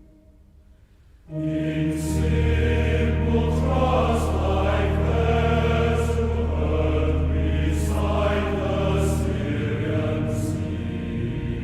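Choir singing a slow sacred song over sustained accompaniment, starting about a second in after a short near-silent pause.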